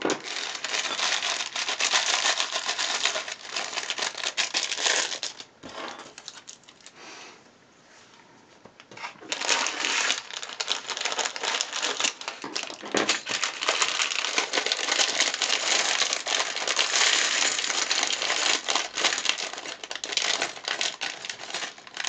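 Plastic bags of LEGO pieces crinkling as they are opened, and small plastic bricks clattering as they are tipped out and spread on a surface. There is a quieter pause of a few seconds near the middle.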